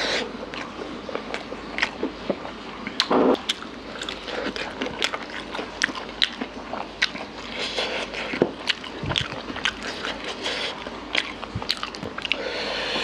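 Close-miked eating of mutton curry by hand: chewing with many short wet clicks and lip smacks, and fingers being sucked clean of gravy.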